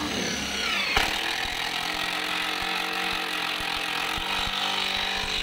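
Cordless drill running, driving screws while a loudspeaker driver is fastened into its cabinet. Its whine drops in pitch over the first second, with a sharp click, then holds steady until it stops near the end.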